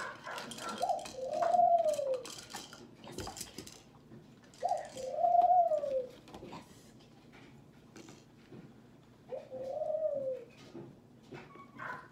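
Plastic rings of a stacking-ring toy clicking and knocking together as a dog noses them. Three long cooing calls, each rising then falling in pitch, come about four seconds apart and are louder than the clatter.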